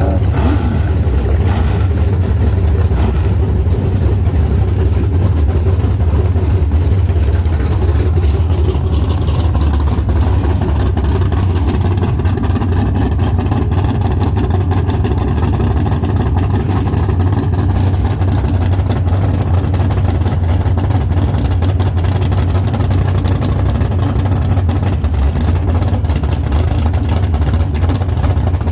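Dodge Challenger drag car's engine idling, loud and steady, with most of its sound deep in the low end.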